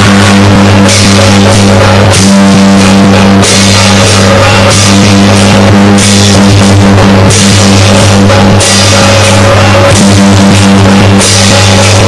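Temple procession percussion troupe playing drums and clashing hand cymbals in a driving rhythm, very loud, over a steady low hum.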